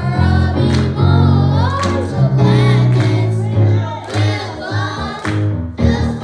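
Gospel worship music: voices singing a melody over a bass line, with regular drum hits.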